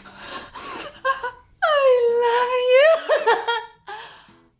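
A woman's exaggerated vocal sounds: a few short breathy, laughing gasps, then a long high-pitched wail held for over a second that rises and wavers before it fades.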